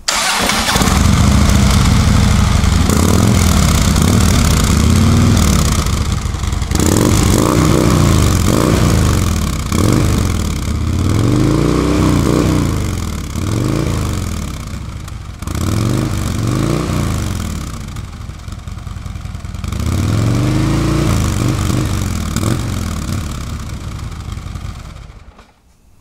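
2014 Harley-Davidson Street Glide's Twin Cam V-twin through its stock slip-on mufflers: it starts and idles for a few seconds, is revved in about six separate throttle blips, and shuts off near the end.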